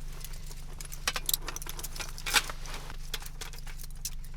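Irregular metallic clicks and clinks of ammunition being handled, taken by the listener for a PKM machine gun being loaded, over the steady hum of a running generator. The sharpest click comes about halfway through.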